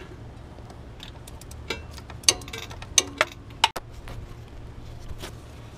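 Hand wrench working a power steering pump mounting bolt loose: a handful of sharp metallic clicks and clinks at uneven intervals, a couple of them ringing briefly.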